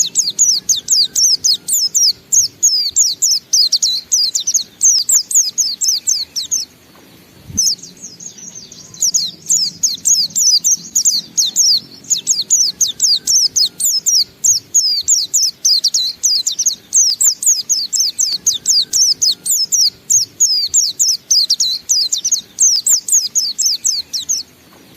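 A white-eye (pleci, Zosterops) singing its long-breath 'ngalas' song: a fast, unbroken stream of high, sliding chirps. It breaks off for a moment about seven seconds in, then runs on and stops just before the end.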